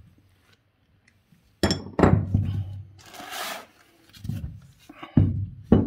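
Metal hand tools and compressor parts being handled on a wooden workbench: several sharp clinks and knocks with a short rustle in the middle, while a socket and ratchet are fitted to the compressor's clutch hub.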